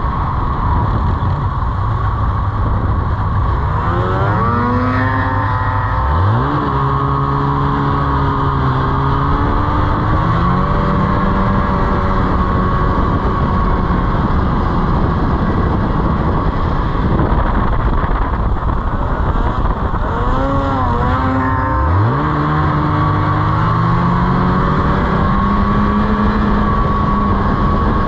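Snowmobile engine running while riding, over constant rushing noise. Twice, about six seconds in and again about twenty-two seconds in, its pitch sags, then climbs sharply as it revs up and settles at a steady higher speed.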